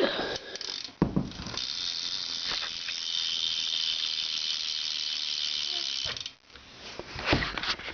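Salt Plus cassette hub on a BMX rear wheel freewheeling as the wheel is spun. A few separate clicks run into a fast, even, high-pitched ratcheting buzz for about four and a half seconds, which cuts off suddenly, then a few more clicks near the end.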